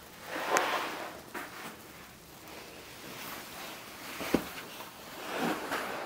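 Soft rustling twice, once near the start and again near the end, with a single sharp click about four seconds in.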